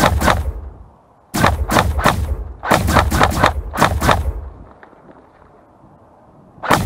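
Realistic rifle gunshot sound effects laid over a G36 airsoft rifle's shots: quick bursts of several shots each in the first four and a half seconds, then a single shot near the end, each ringing briefly.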